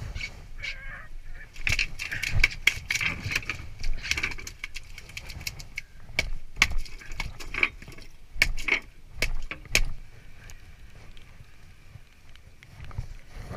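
A freshly caught saithe flapping and being handled over an aluminium checker-plate boat deck while it is unhooked: a scattered run of sharp knocks and slaps. The knocks thin out and stop about ten seconds in.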